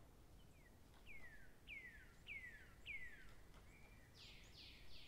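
A bird singing faintly: a run of five whistled notes about every half second, each sliding down in pitch, then a few harsher, wider downward notes near the end.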